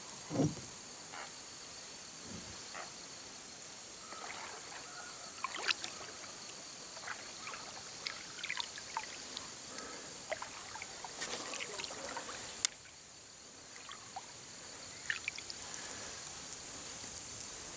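Kayak paddle strokes in river water: small irregular splashes and drips as the blades dip and lift. A steady high insect buzz runs underneath, and about two-thirds of the way through it drops away abruptly.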